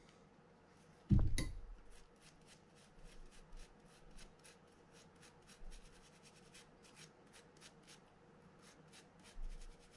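A toothbrush scrubbing old grease off the frame of a Shimano TLD 50 LRS fishing reel in short, quick strokes, several a second. A dull thump about a second in.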